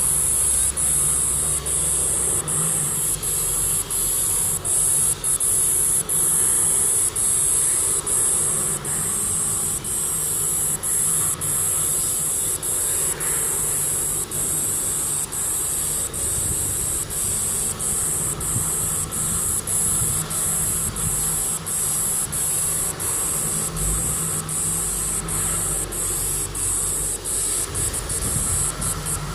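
Insect buzzing: a loud, steady, very high-pitched buzz broken by brief gaps a little more than once a second, stuttering faster near the end.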